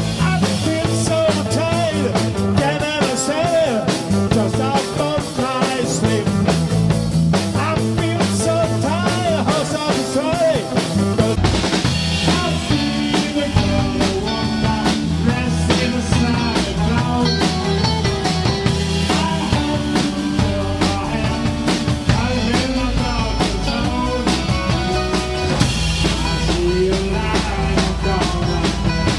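Rock music with a drum kit and electric guitars, a band playing live. About a third of the way in the sound changes, with a heavier, steadier bass underneath.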